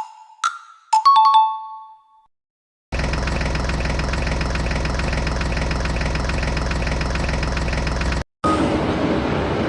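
A short chime of two or three bell-like tones, then after a brief pause a vehicle engine idling steadily. The engine cuts out for a moment near the end and starts again.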